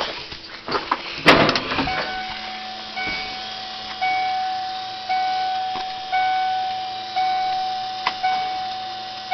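A thump about a second in, then a vehicle's electronic warning chime dinging about once a second, each ding dying away before the next.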